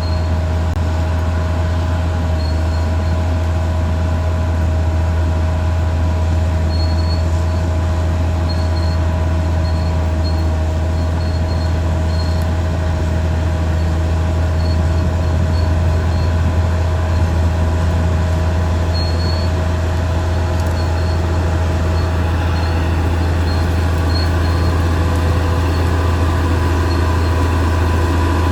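Caterpillar D6R XL crawler bulldozer's diesel engine running steadily under load, a constant low drone, with brief high squeals now and then from the steel tracks.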